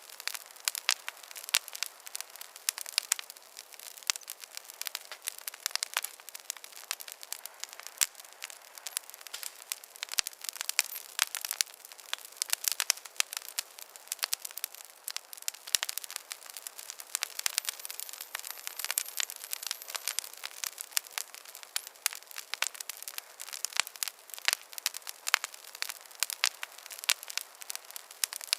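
Wood campfire crackling: dense, irregular pops and snaps over a soft hiss.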